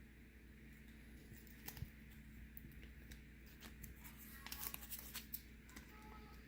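Faint rustling and crinkling of vinyl decal stickers being peeled off their backing paper, with scattered soft clicks. The sounds are busiest a little past the middle.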